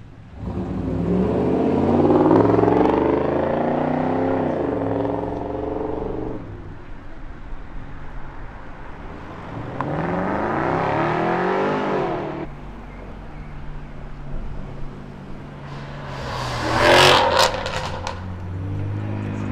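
Performance car engines accelerating hard, twice, pitch climbing and dropping back through the gear changes: one run starting about half a second in, another around ten seconds in. A steady low engine idle follows, and a short burst of sharp cracks near seventeen seconds is the loudest moment.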